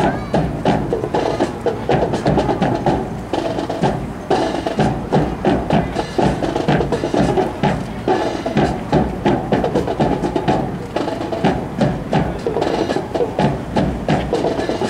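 Marching drums playing a fast, steady cadence to accompany a rifle drill, rapid crisp strikes over a low drum beat.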